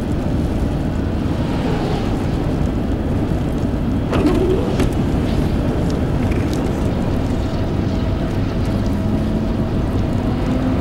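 Steady road and tyre noise of a car driving on a wet road, heard from inside the cabin, with one short thump about four seconds in.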